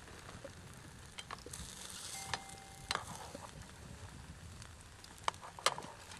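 Eggs sizzling in a skillet over a small stick fire in a folding wood stove, a steady frying hiss with scattered small crackles. Near the end come a couple of sharp clicks as a metal spatula goes into the pan.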